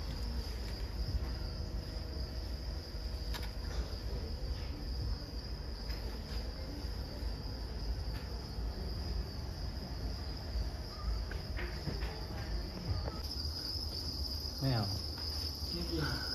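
Crickets chirping in a continuous high-pitched trill, over a low background rumble.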